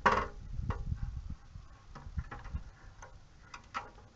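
Scattered light clicks and taps of small metal carburetor parts being handled, as the float bowl is worked off a Briggs & Stratton generator carburetor; about five irregular clicks, the loudest right at the start.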